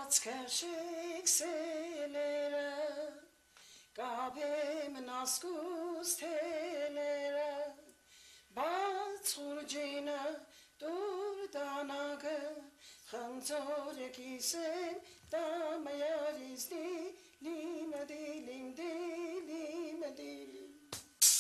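A solo voice singing unaccompanied: a slow, ornamented melody with a wavering vibrato, sung in phrases a few seconds long with short breaks between them.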